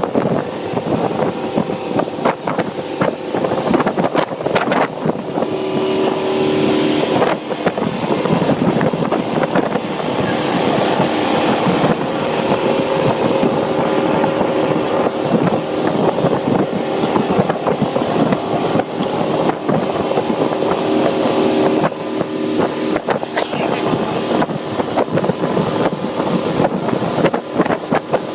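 Motorboat running flat out at about 40 mph: a steady engine hum under the rush of wind and water, with wind buffeting the microphone and frequent short knocks.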